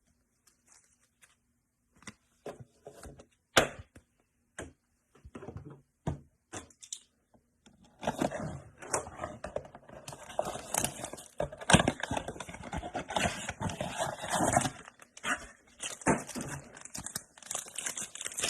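The wrapper of a trading-card pack being torn open and crinkled, with scattered clicks and taps of the cards being handled. The crinkling is densest from about eight to fifteen seconds in.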